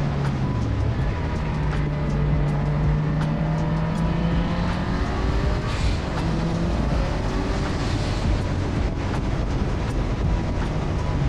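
A 500 hp wagon's engine pulling hard at speed on a racetrack, its pitch shifting up and down with the throttle and gears, over steady wind and road noise.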